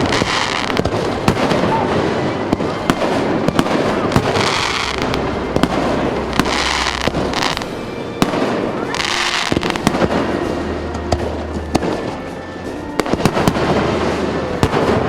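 Aerial fireworks display: a continuous run of sharp bangs and cracks, with several bursts of hissing crackle, over background music.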